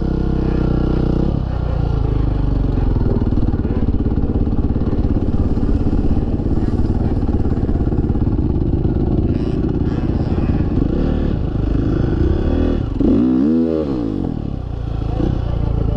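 Dirt bike engine running as it is ridden, heard close up from the rider's helmet. About thirteen seconds in, an engine revs up and drops back quickly, as a quad ATV comes alongside.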